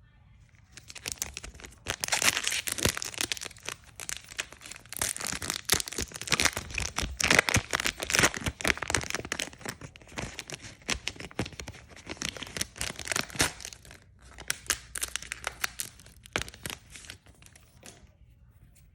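Plastic trading-card booster pack wrapper crinkling and tearing open in a long run of dense, irregular crackles, starting about a second in and stopping near the end.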